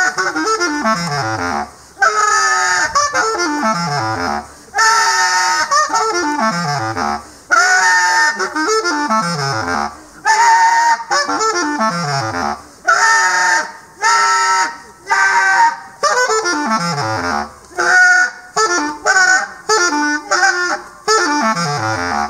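Solo bass clarinet improvising: the same kind of phrase comes back about every two and a half seconds, a held note followed by a fast run plunging down to the bottom of its range. Near the end the notes turn shorter and choppier.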